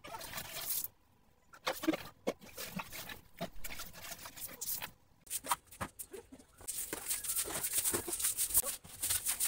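Knocks and clatter of plastic buckets being handled, then, from about seven seconds in, a stiff twig broom sweeping a concrete floor in quick scratchy strokes.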